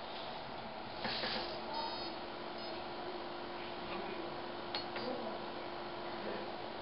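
Robot arm servo motors humming steadily. A short electronic beep sounds near two seconds in, after a brief hiss, and a couple of light clicks come later.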